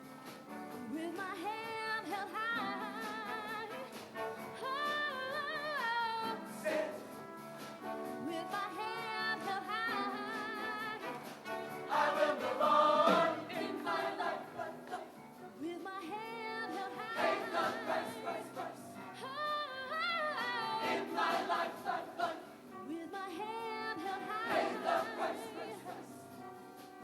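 High school show choir singing a song together with vibrato, over instrumental accompaniment with a light beat.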